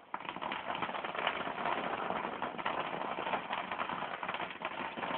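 A ground firework going off with a dense, steady crackling fizz of many rapid pops, starting suddenly just after the beginning.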